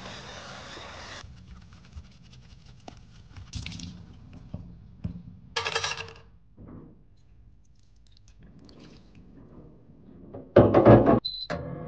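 Tap water runs briefly onto a plastic cosmetic compact, then small clicks and a short clatter as the wet plastic compacts are handled and set down in a metal tray. Near the end comes a loud clatter lasting under a second, then a short high electronic beep from a UV sterilizing cabinet.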